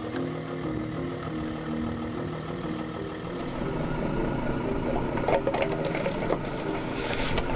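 A car tyre rolls over hollow plastic toy bowling pins and crushes them, with a cluster of crackling and crunching about five seconds in. Underneath runs the low hum of the car's engine, with background music.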